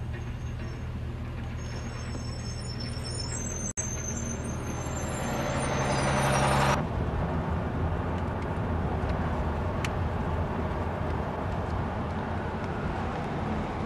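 Car engine and road noise heard from inside the car's cabin in slow city traffic. A rushing noise swells over a few seconds and cuts off suddenly about halfway through.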